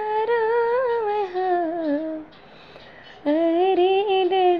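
A woman sings a bidai geet, a folk song of the bride's farewell, solo with no instruments. She holds long, wavering notes that slide downward, pauses briefly about two seconds in, then picks up another long held note.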